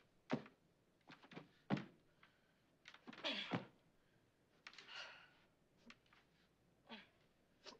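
Faint scattered thunks and rustling from a person bound to a wooden chair straining against the ropes, the chair knocking on the floor now and then.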